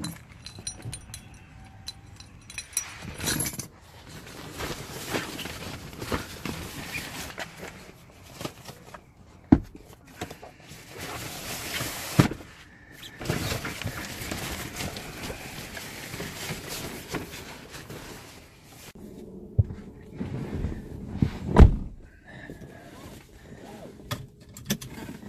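Handling sounds of getting into a car: footsteps, keys jangling and rustling, with several sharp thumps from the car door and the cabin, the loudest a heavy thud near the end, and a seatbelt being pulled across.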